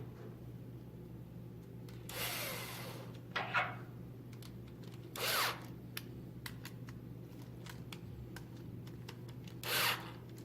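A small power driver runs in three short bursts, about a second each, driving M4 screws and lock nuts into the wheelie-bar and bumper assembly, with small clicks of parts being handled between the bursts and a steady low hum underneath.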